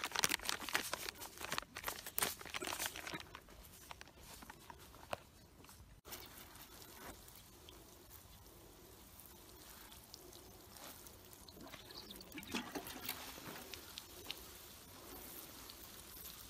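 Plastic bag crinkling and insecticide granules pattering onto pepper seedling trays. After a cut about 6 s in, a watering can's rose sprinkles water onto the trays in a soft, steady patter, soaking the plugs so the seedlings come out easily for transplanting.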